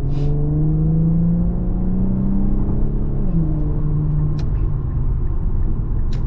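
Infiniti Q50's twin-turbo V6 accelerating hard: the engine note climbs steadily, drops at a gear change about three seconds in, then climbs again.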